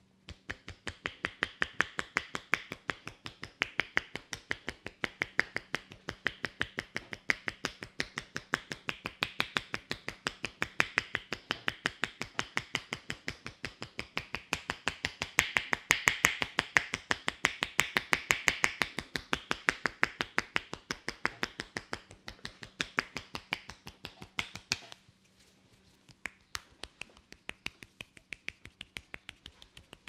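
Head-massage tapping: palms pressed together with loosely joined fingers strike the scalp in a fast, even run of sharp clicks. The clicks turn fainter and sparser about 25 seconds in.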